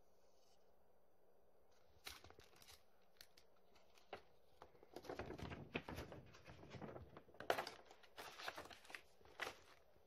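Paper rustling and crinkling in irregular bursts as a large folded paper map is unfolded and smoothed flat by hand. It starts about two seconds in and is busiest in the second half.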